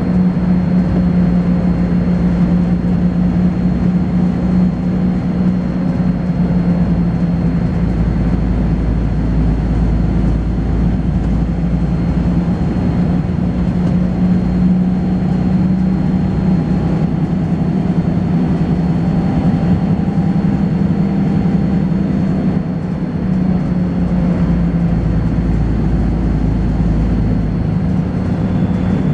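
Volvo B10BLE bus running under way, heard from on board: a steady diesel drone and rumble, with a thin high-pitched whine running through it.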